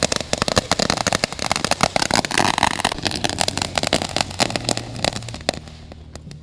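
Ground firework spraying sparks with rapid crackling and popping and a hissing rush, dying out about five and a half seconds in.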